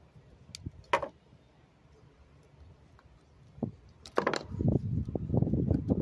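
A sharp click about a second in, then from about four seconds a dense run of knocking and rattling as the snow blower's electric motor is handled and pulled free of its plastic housing.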